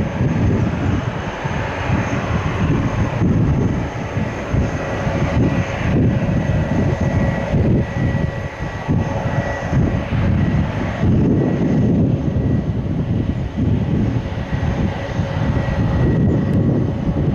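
Airliner passing with its engines running: a steady high whine over a loud rushing noise. Gusts of wind buffet the microphone.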